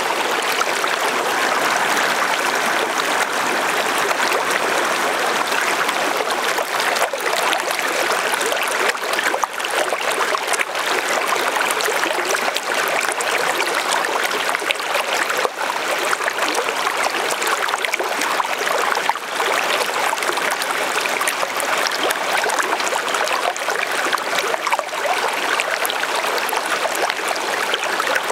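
Lake water lapping and trickling at the shore, a steady, unbroken wash with small splashy ticks throughout.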